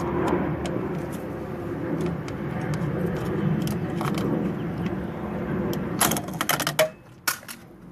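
An old Pushmatic circuit breaker being worked loose and pulled out of its panel: a few scattered clicks, then a quick cluster of plastic-and-metal clicks and rattles about six seconds in, over steady low background noise.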